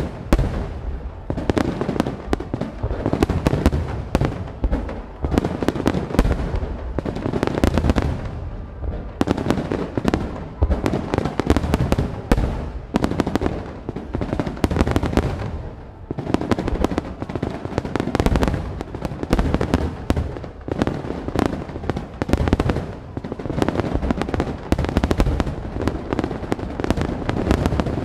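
Aerial fireworks shells bursting in quick, dense succession: a continuous run of sharp bangs and crackles over a low rolling rumble.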